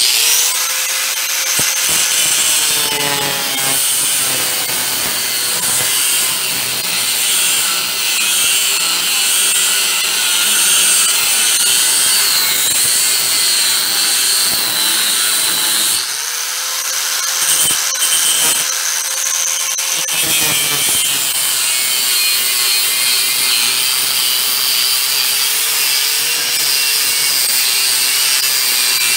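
Angle grinder cutting a slot into a 1/2-inch steel threaded rod held in a vise, a steady motor whine that sags as the disc bites. For a few seconds in the middle the grinding eases and the motor rises in pitch, then it cuts again.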